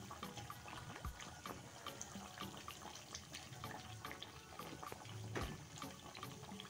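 Mathri (flat maida dough discs) deep-frying in medium-hot oil in a kadai: a steady fine crackling and bubbling of the oil round the freshly added dough, with two faint low thumps.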